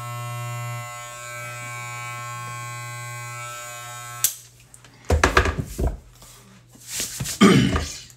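Corded electric hair clipper buzzing steadily, then switched off with a click about four seconds in. Two loud bursts of noise follow near the end.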